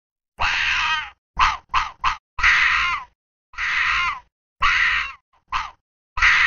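A fox's harsh calls, repeated about nine times: some last about half a second and some are very short, each dips in pitch, and each stops abruptly.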